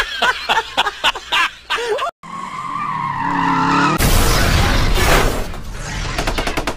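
Edited-in sound effects: a fast run of mechanical clicks and whirs like a robot transforming, then a short humming tone, then a loud rushing vehicle noise with a skid and a low rumble.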